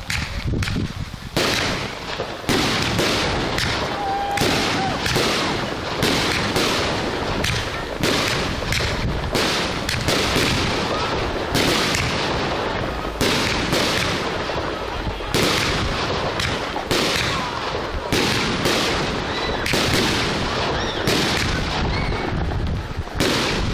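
Large fireworks display: aerial shells bursting in quick succession, a dense run of loud bangs with crackling between them.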